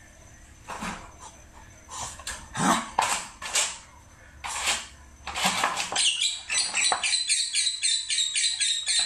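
Animal calls: a string of separate sharp calls, then rapid high squeaking repeated about four times a second over the last three seconds.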